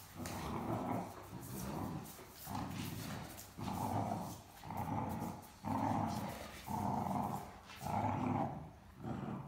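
Great Dane puppy growling and grumbling in a string of short bursts, about one a second, while tugging at a stuffed toy in play.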